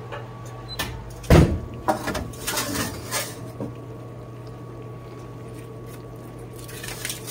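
Metal bakeware handled on a gas range: a heavy clunk about a second in as the sheet pan with the baking dish is set down, then lighter clatters and rattles, and near the end a light crinkle as the aluminium foil is lifted. A steady low hum runs underneath.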